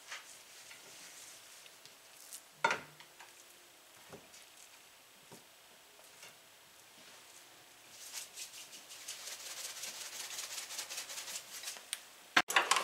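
A hand rubbing dry seasoning into raw pork chops in a glass baking dish: quiet rubbing with a few soft knocks, then from about eight seconds a quick run of light rubbing strokes, and a sharp click near the end.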